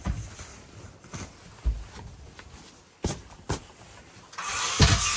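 Curtain being hung on a camper's curtain track: light clicks and knocks as the small track pieces go into the track, then, about four seconds in, a loud steady rustle of curtain fabric handled right against the microphone, with one thump.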